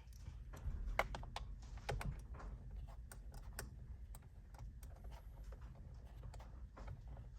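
Scattered, irregular light clicks of a ratcheting socket wrench with an 8mm socket working loose the screws behind a steering-wheel airbag, along with small metal handling clicks.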